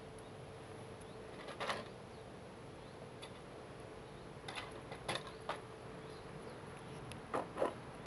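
Shetland Sheepdog puppies at play: a handful of brief, sharp sounds, two in quick succession near the end, over a faint steady hum.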